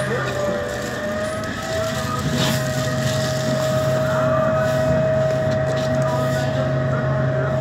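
MAN Lion's City G CNG articulated bus running under way, its MAN E2866 gas engine and Voith automatic gearbox giving a steady drone with a high transmission whine on top. Both drop slightly in pitch right at the start, then hold steady.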